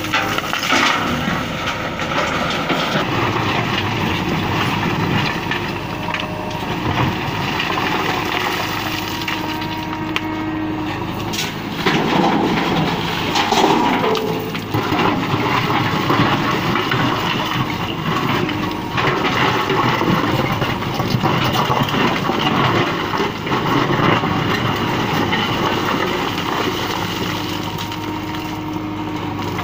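JCB backhoe loader's diesel engine working under load, with broken stone clattering as the bucket digs and tips it into a steel tipper truck body.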